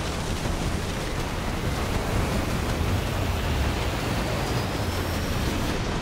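Snow avalanche sliding down a mountainside: a steady, deep rushing noise.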